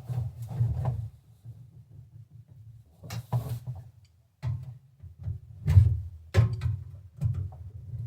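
Irregular knocks and clunks of hand tools and metal parts being handled while a diesel heater is fitted, with louder knocks about three, five and a half, six and a half and seven seconds in.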